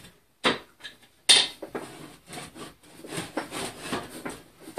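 Small benchtop drill press being laid on its side and shifted into place on a wooden workbench: two sharp knocks about half a second and a second and a quarter in, then a run of lighter clunks and scrapes.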